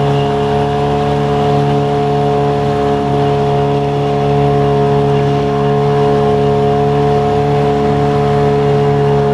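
Small boat's outboard motor running at a steady speed, a constant drone that does not change in pitch.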